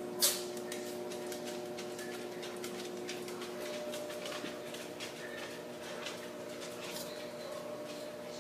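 An orange kitten sneezing once: a single short, sharp burst just after the start, the loudest sound here. Faint scattered clicks follow over a steady low hum.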